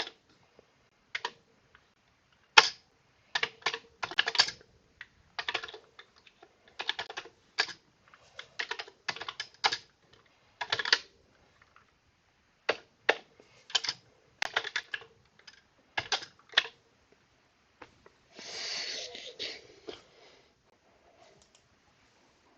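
Commodore 64 mechanical keyboard being typed on, with irregular clusters of clacking keystrokes. About eighteen seconds in there is a denser two-second flurry of noise.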